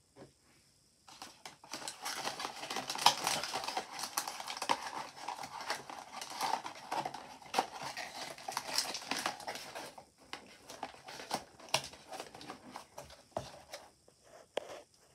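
Cardboard blind-box packaging handled by hand: a dense run of rustling, clicks and taps starting about a second in, thinning to scattered taps after about ten seconds.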